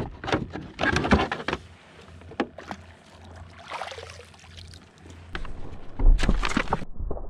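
Irregular knocks and scrapes on the plastic hull of a fishing kayak while a speckled trout is handled in the cockpit, with a heavy thump about six seconds in. The sound turns muffled just before the end.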